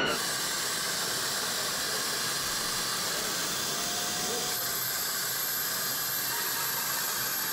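A steady, even hiss that cuts in and out abruptly.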